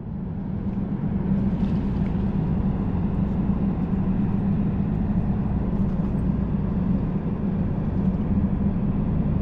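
Steady low hum of anchored bulk cargo ships carrying across the river, one constant drone with a low rumble beneath it.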